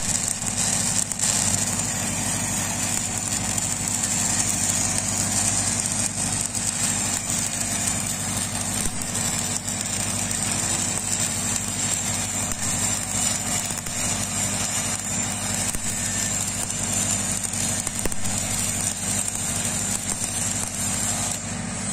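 Stick-welding arc from a 6010 electrode running the root pass on a steel pipe joint: a steady hiss with small crackles, without a break. Under it, the steady hum of an engine running.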